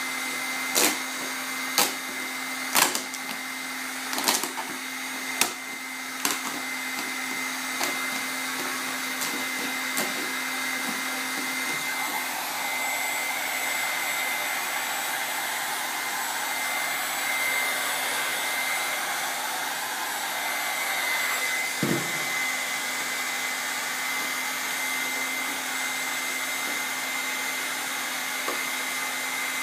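Hot-air heat gun blowing steadily, with a thin high whine from its fan motor, heating vinyl wrap film. Several sharp clicks in the first third and a single knock about two-thirds through.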